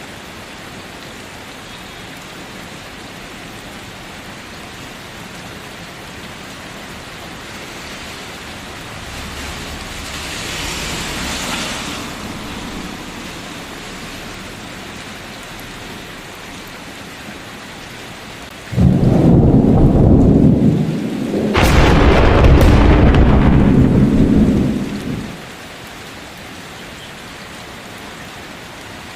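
Steady rain with thunder. A low rumble swells and fades about ten seconds in; then, a little past the middle, a sudden loud thunderclap breaks, cracks a second time and rumbles for about six seconds before the steady rain is left again.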